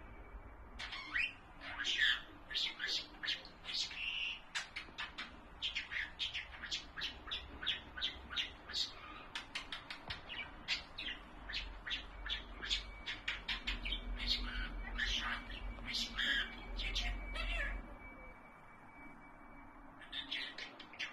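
Albino budgerigar chattering: a rapid, continuous stream of warbles, chirps and clicks. It pauses briefly near the end.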